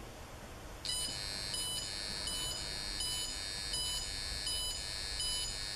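An RF meter's audio output buzzing steadily in a high tone, starting about a second in, with brief regular dropouts about every three-quarters of a second. It is the meter sounding the constant pulsed radio emission of a DECT cordless phone base station that has just been powered on.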